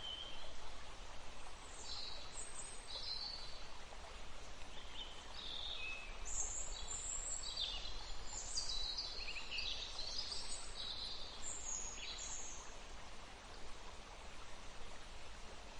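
Birds chirping: many short, high calls come and go over a faint, steady outdoor hiss, thinning out near the end.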